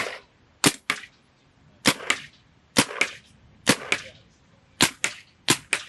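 Electronic paintball marker firing about a dozen sharp shots, some singly and some in quick pairs.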